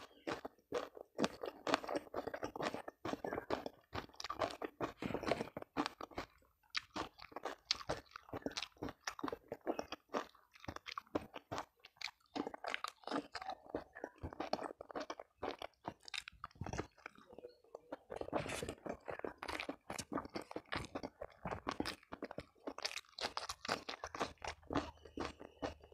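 A person chewing and crunching food close to the microphones, eating rice with spicy chicken necks, tofu, eggplant and raw cucumber by hand. Quick crisp crunches and wet mouth sounds follow one another closely, with short pauses about six and a half seconds in and again around seventeen seconds.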